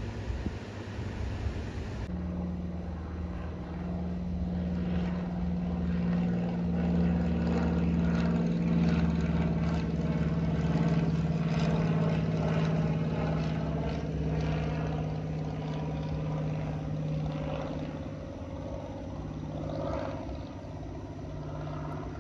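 An airplane flying low overhead, its engines making a steady drone with several held tones. The drone grows louder toward the middle, then fades as the plane moves away.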